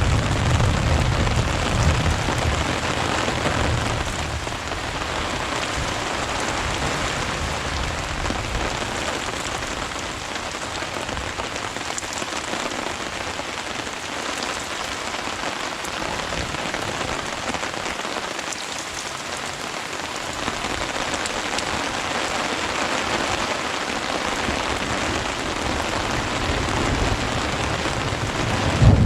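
Steady rain falling during a thunderstorm, with a low rumble of thunder dying away over the first few seconds.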